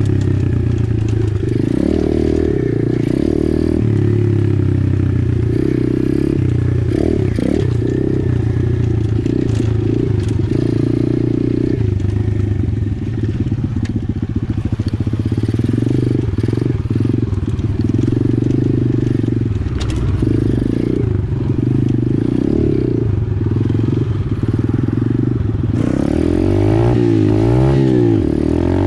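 Apollo 125cc pit bike's single-cylinder engine running while ridden, its revs rising and falling with the throttle. Near the end the revs climb and drop several times in quick succession.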